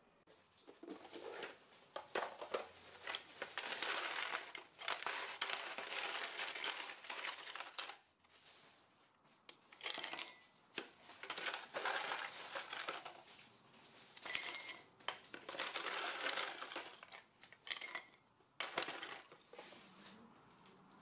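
Ice cubes clattering and clinking as they are tipped from a plastic ice container into a ceramic mug, in repeated runs with short pauses. Near the end, water is poured over the ice.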